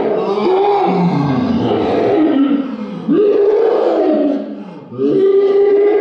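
A young man screaming in a high falsetto voice: long drawn-out wails that bend up and down, break twice, and end in one long held scream.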